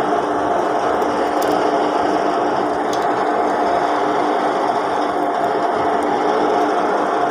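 Crane engine running with a steady mechanical drone and a constant hum while the hook lowers a load.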